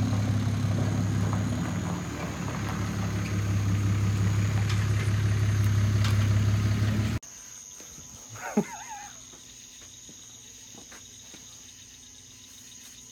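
Pickup truck engine idling with a steady low drone. It cuts off abruptly about seven seconds in, leaving crickets chirping steadily, with one brief sliding sound soon after.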